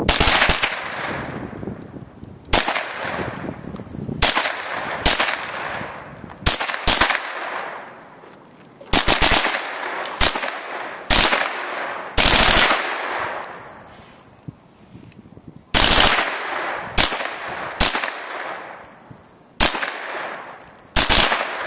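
Kel-Tec Sub-2000 carbine being bump-fired: short, rapid strings of semi-automatic shots with pauses between them, each string trailing off in echo.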